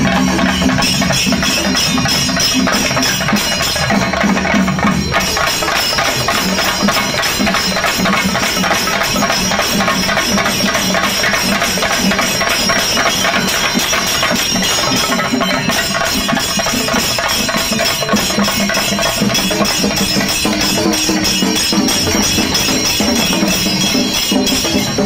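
A troupe of chenda drums beaten with sticks, playing a fast, dense, unbroken rhythm with steady ringing tones over the drumming.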